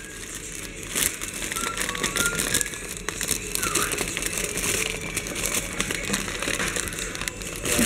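Clear cellophane gift wrapping crinkling and rustling as it is handled and opened by hand.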